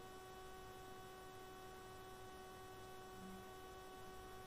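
Near silence with a faint, steady electrical hum in the recording, made up of several fixed tones.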